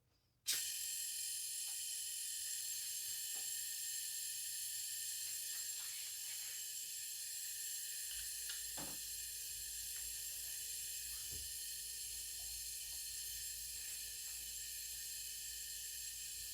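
Compressed air hissing steadily from a cylinder leak-down tester, switched on suddenly about half a second in, as it pressurizes a low-compression cylinder that is losing about 50% of its air. The loss is past the piston rings and through a cracked or damaged head gasket. A few faint knocks sound around the middle.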